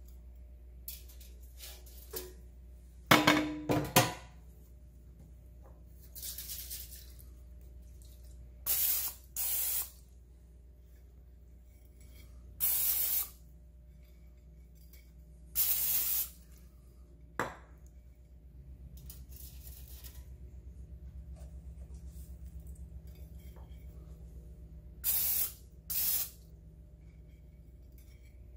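Several short hisses of an aerosol cooking-oil spray can, spraying breaded fish fillets in an air fryer basket; each burst lasts about half a second to a second. A loud clatter comes about three seconds in.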